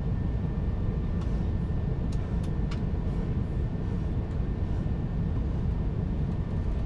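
Steady cabin noise of an Airbus A350 in cruise flight: an even low rumble of airflow and engines with a faint steady whine, and a few light clicks between about one and three seconds in.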